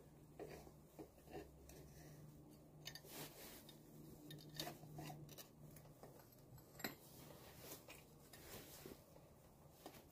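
Near silence with faint, scattered metallic clicks and scrapes as a clutch fork return spring is worked onto the fork of an AX-15 manual transmission.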